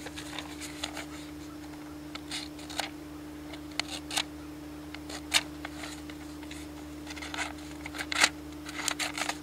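Gobbler Guillotine broadhead blades drawn through a sheet of paper in a sharpness test: a string of short, scattered scratching and slicing sounds of paper being cut. This is a blade judged maybe not quite as sharp as the Magnus Bullhead.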